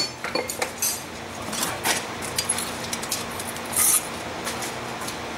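Scattered metallic clinks and clanks of steel being handled on an anvil, including the rattle of the loose chain hold-down being lifted off the workpiece, over a faint steady hum.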